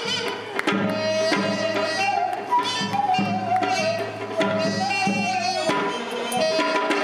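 Korean traditional music: a wavering melody line with vibrato over a low sustained drone, with regular hand-drum strokes.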